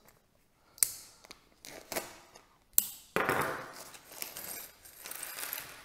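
A few light clicks of small plastic hardware, then a clear plastic parts bag crinkling for about the last three seconds as it is handled and pulled open.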